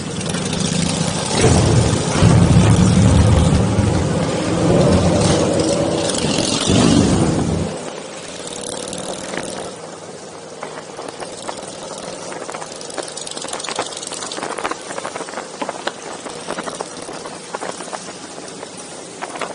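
Motorcycle engines running loudly, with a couple of revs rising and falling, then the engine noise drops away suddenly about eight seconds in, leaving a quieter background with scattered light clicks.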